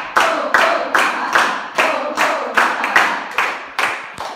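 A group of people clapping together in a steady rhythm, about two and a half claps a second, with voices joining in over the claps.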